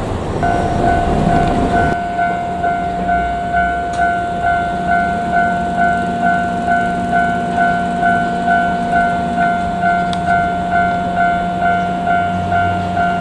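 Japanese level-crossing alarm ringing: an electronic two-tone ding repeating about twice a second, starting about half a second in. For the first two seconds the noisy rumble of a passing train runs under it, then cuts off.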